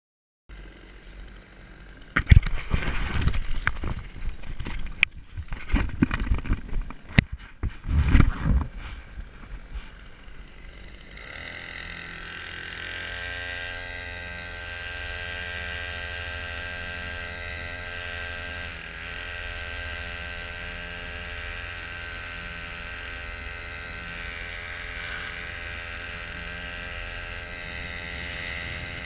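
Several seconds of irregular knocks and handling noise, then from about eleven seconds in a small boat motor running steadily.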